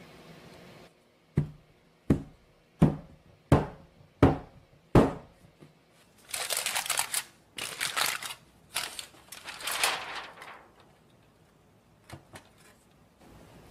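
A metal cake pan of cheesecake batter rapped down on the counter six times, about one knock every 0.7 s, to knock air bubbles out of the batter. Then several seconds of aluminium foil crinkling in bursts.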